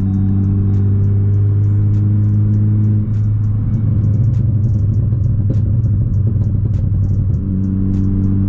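Ford Focus ST's turbocharged four-cylinder engine and road noise heard from inside the cabin while cruising at highway speed: a steady low drone.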